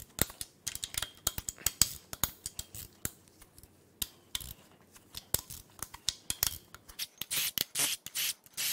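Hand ratchet clicking in quick irregular runs as the cam tower bolts are backed out, the clicks coming faster and denser near the end.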